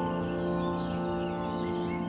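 Soft ambient new-age music holding a sustained chord that slowly fades, with birds chirping lightly over it.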